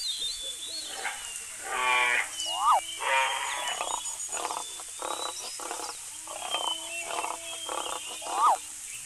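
Overlapping animal-call sound effects: drawn-out pitched calls, a run of quick pulsed calls in the middle, and a short rising-and-falling chirp that comes back twice.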